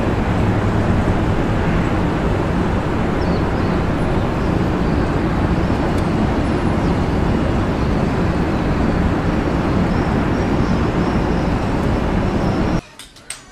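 Steady, loud rumble of a car heard from inside the cabin. It cuts off abruptly about a second before the end, leaving a few faint clicks.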